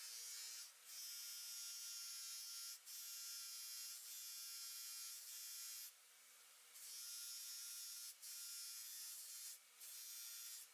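Bench buffer's electric motor running with a steady hum while a steel pin is pressed against the spinning buffing wheel, giving a high hissing whir that breaks off briefly several times as the pin is lifted away and put back.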